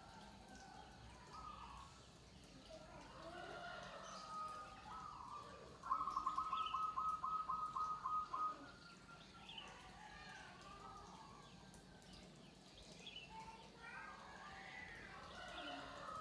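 Several zebra doves cooing together, with faint overlapping calls. About six seconds in, one dove gives a louder run of quick, evenly spaced staccato coos, about four a second, lasting a couple of seconds.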